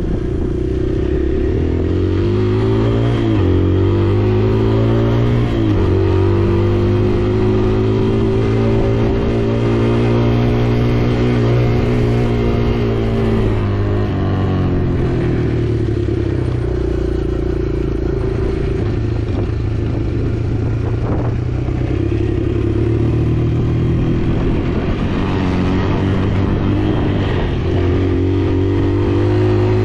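Kawasaki KLX140R L dirt bike's single-cylinder four-stroke engine running under way with the throttle worked. Its pitch climbs over the first few seconds, holds high, drops about halfway through, and climbs again near the end.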